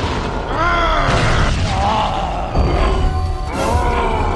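Cartoon action soundtrack: music over deep booming hits, with two short cries that rise and fall in pitch, about half a second in and again near the end.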